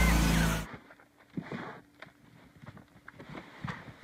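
Lawn tractor engine running loudly, cut off suddenly less than a second in, followed by faint scattered knocks and rustles.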